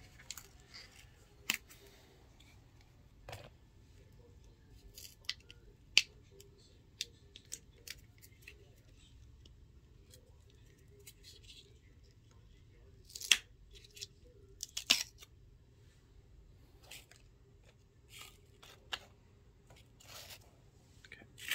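Scattered small clicks and taps of plastic dip-powder jars and lids being handled and unscrewed on a tabletop, with a few sharper clicks.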